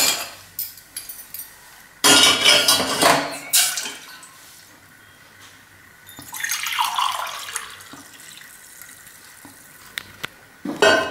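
Warm water poured from a stainless-steel pot into a steel tumbler, splashing in two pours, one about two seconds in and one about six seconds in, with clinks of steel on steel at the start and near the end.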